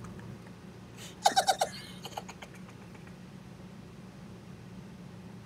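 A short burst of laughter, four or five quick 'ha' sounds about a second in, over a low steady hum.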